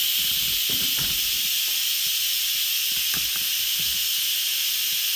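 Instant Pot Smart WiFi electric pressure cooker venting steam through its release valve in a steady, high hiss: a quick release letting the pressure out after a water test.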